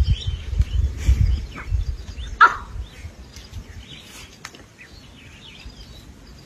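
Lioness growling in low, uneven rumbles for the first two seconds or so, then one sharp, loud animal call about two and a half seconds in; faint bird chirps follow.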